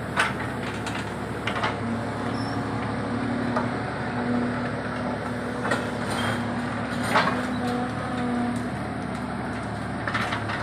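Mini excavator running steadily, with a tone from the machine that comes and goes, and about five sharp clanks spread through, the loudest near the start and about seven seconds in.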